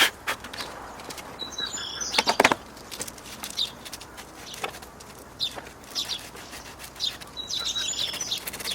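Sandpaper rubbing on a corroded car battery terminal in short, irregular scraping strokes, the heaviest about two seconds in. Birds chirp briefly twice, near the start and near the end.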